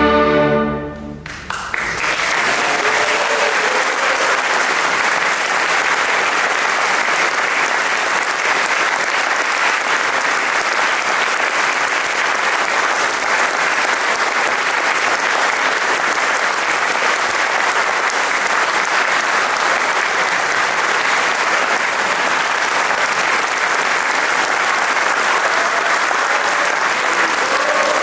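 An orchestra's final held chord cuts off about a second in, and the audience breaks into steady applause.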